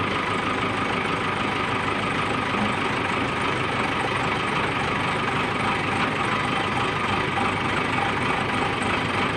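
Diesel engine of a backhoe loader running steadily near idle.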